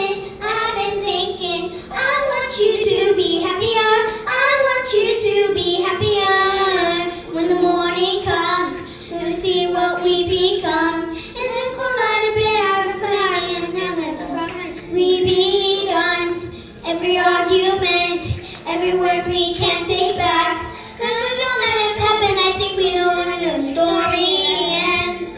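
Two young girls singing a pop song through handheld microphones and a small amplifier, with backing music under their voices.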